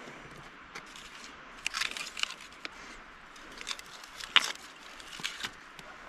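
A series of short, sharp scrapes and snaps from fire-lighting work in a campfire pit, spaced irregularly, the loudest about four and a half seconds in.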